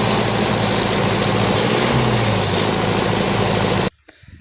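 MTZ-80 tractor's D-240 four-cylinder diesel running steadily, its pitch rising briefly about halfway through. The sound cuts off abruptly near the end.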